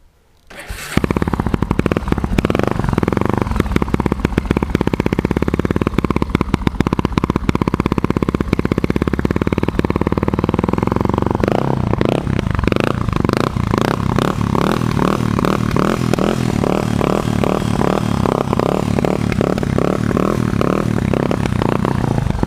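Honda XR250 Tornado's single-cylinder four-stroke engine, fitted with an aftermarket exhaust tip, starting suddenly under a second in and running loudly. About halfway through, its beat changes to a slower, evenly spaced pulsing.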